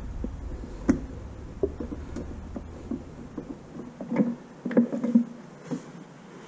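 Irregular plastic clicks and knocks from a hand-operated gear oil pump being worked, forcing new gear oil through a hose into an outboard's lower unit. They come thicker about two-thirds of the way through.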